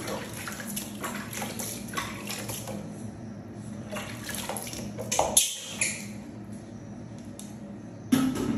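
Water splashing and trickling in a plastic basin as a baby monkey is washed by hand: irregular small splashes, with a louder splash a little past five seconds in. A brief louder sound cuts in right at the end.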